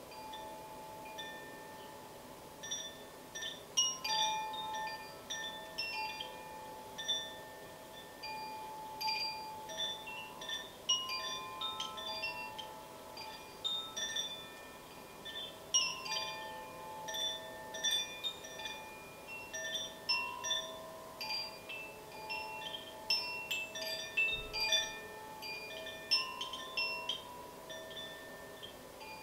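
Handheld cylindrical wind chime, held up and gently swayed, ringing with an irregular scatter of light strikes whose overlapping tones hang on and fade.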